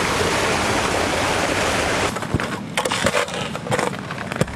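A loud, even rushing noise that cuts off suddenly about two seconds in. It is followed by a hiker's boots crunching over snow and stones, several steps with irregular rustling.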